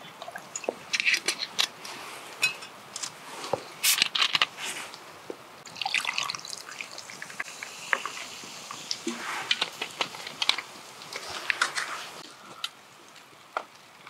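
Rice cooking in a lidded pot over a campfire: irregular bubbling pops, spits and crackles.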